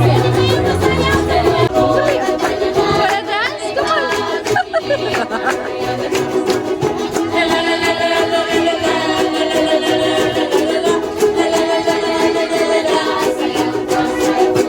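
Background music: a song with a strummed string accompaniment and a steady beat.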